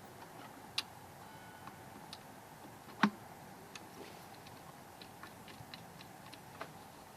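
Faint, scattered light clicks and ticks over a low steady background, with one sharper knock about three seconds in.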